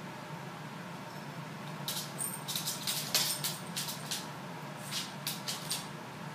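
Dog and cat claws scrabbling and clicking on a hardwood floor as a Boston Terrier and a Ragdoll cat play-wrestle. A quick run of scratchy clicks starts about two seconds in and dies away near the end, over a steady low hum.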